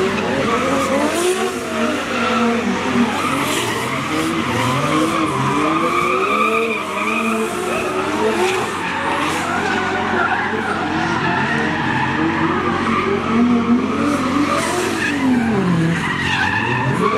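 Drift cars sliding through a course with their tyres squealing. Their engines rev up and down repeatedly as the drivers work the throttle.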